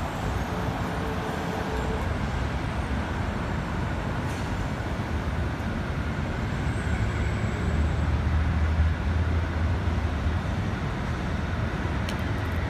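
City street traffic noise: a steady rumble of passing vehicles, with a deeper, louder rumble swelling from about seven seconds in and easing off about three seconds later.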